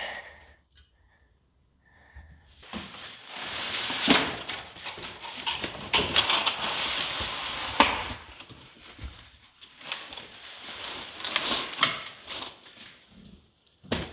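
Cardboard box and packing paper rustling and scraping, with scattered knocks, as new chrome motorcycle exhaust pipes are pulled out of their packaging; it starts a couple of seconds in and comes in uneven bursts.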